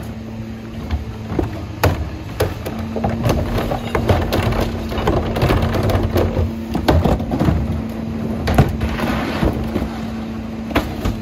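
Leach rear-loader garbage truck at work: a wheeled trash cart is tipped by the truck's cart tipper and rubbish and a rolled carpet go into the hopper with repeated knocks, bangs and clatter. Under it the truck's diesel runs with a low rumble, and a steady hum from the engine and hydraulics sets in about three seconds in.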